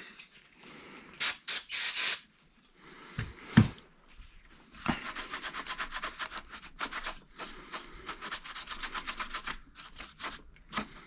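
Fast back-and-forth scrubbing of dirt and grime off the plastic air filter box of a Yamaha Breeze ATV, at several strokes a second. It is preceded about a second in by three short hissing bursts and then a single knock.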